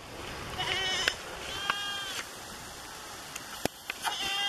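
Goats bleating: three short calls, each about half a second, the last starting just before the end. A single sharp click comes shortly before the last bleat.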